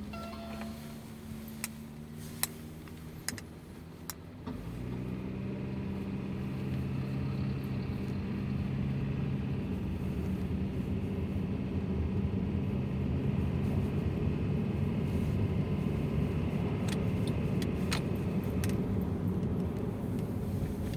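Honda Freed GB3's L15A 1.5-litre four-cylinder engine running while the car drives, pulling harder and getting louder from about four and a half seconds in. A few sharp knocks come in the first four seconds and again near the end, in a car the owner is checking for a knock under load.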